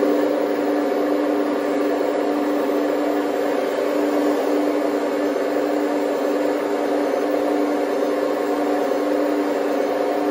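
Scale RC hydraulic excavators running together: a loud, steady machine drone from their engine-sound units and hydraulic pumps, with one constant humming tone, as the largest model, a Liebherr 970, raises its boom and bucket.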